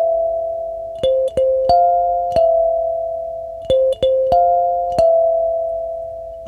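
Background music: a slow melody of single struck keyboard-like notes, each starting sharply and fading out before the next.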